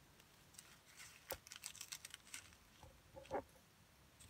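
Faint, scattered clicking and rustling of small plastic bags of square diamond-painting drills being handled and sorted by hand.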